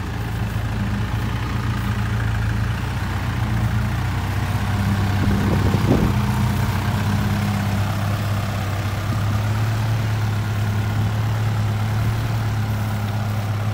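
Isuzu light dump truck's engine running steadily at close range, with a brief thump about six seconds in.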